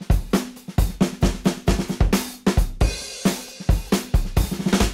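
Drum kit beat of the background music: kick, snare and hi-hat hits in a steady, fast rhythm.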